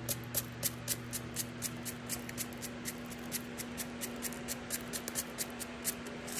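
Sprinkles being shaken from their container onto frosted cookie bars: a sharp rattle about four times a second, stopping near the end, over a steady low hum.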